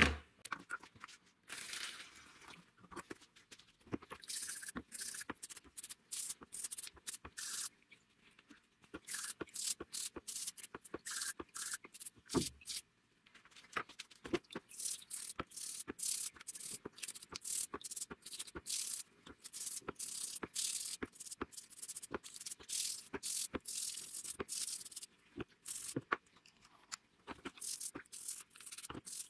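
A knock as chainsaw parts are set into a plastic tub, then a toothbrush scrubbing rusty parts in a bath of cleaning liquid: long runs of quick, scratchy, wet brushing strokes.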